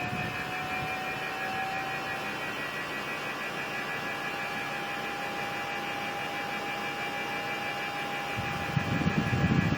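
Mitsubishi Mr. Slim mini-split indoor unit giving off a steady high-pitched whine over a soft airflow hiss, the main tone creeping slightly up in pitch over the first few seconds, with a fainter pulsing higher tone alongside. The owner wonders whether the whine comes from the motor. A louder low rush comes in near the end.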